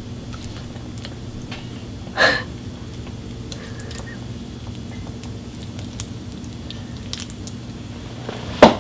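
Someone eating: two loud bites of food, one a little over two seconds in and one near the end, with small mouth clicks of chewing between them over a steady low hum.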